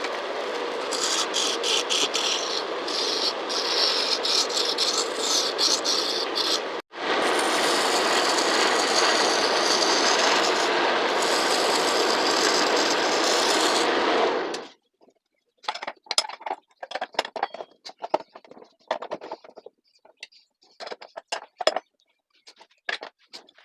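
A turning tool or rasp scraping against a piece of wood spinning on a homemade lathe: a steady rasping noise that breaks off for an instant about seven seconds in and stops about fifteen seconds in. Scattered light knocks and rattles follow.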